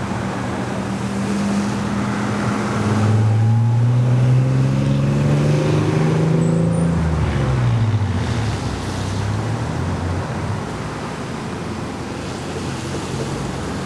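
A motor vehicle passing close by: its engine note rises as it approaches, then drops quickly as it goes past about eight seconds in, over a steady rushing background.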